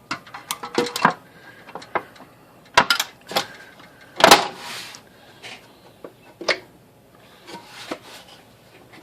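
Plastic case of an IBM Selectric typewriter being handled and fitted back onto the machine: irregular clicks, knocks and scraping. The loudest is a knock about four seconds in, with a short scrape after it.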